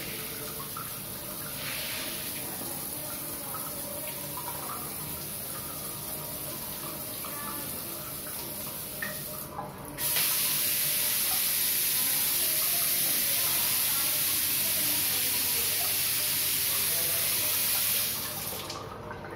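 Water running through a bathroom shower mixer as a steady hiss. About halfway through, after a brief break, it changes abruptly to a much louder, brighter rush of water. That rush falls away near the end as the mixer is turned off.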